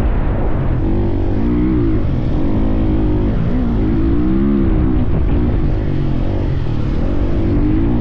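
Husqvarna dirt bike engine running under the rider, its pitch rising and falling again and again as the throttle is worked over sand, over a heavy low rumble of wind on the microphone.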